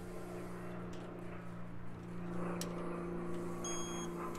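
A click-type torque wrench clicks off once, sharply, about two and a half seconds in, as it reaches its set torque on a camshaft pulley bolt. A steady low hum runs underneath, and a short electronic beep sounds near the end.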